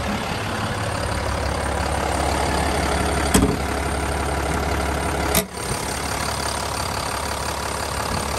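Cummins 6.7-litre inline-six turbo diesel idling steadily, with two brief clicks about three and a half and five and a half seconds in.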